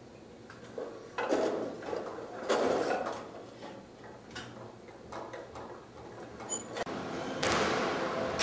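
Automatic golf tee machine working as its tee height is adjusted: two short sliding, rattling mechanical sounds about one and two and a half seconds in, then lighter clicks.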